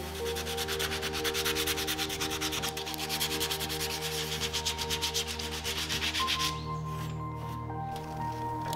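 Sanding on bare wood furniture: quick, even, rhythmic rasping strokes that stop about six and a half seconds in. Soft background music with held notes runs underneath.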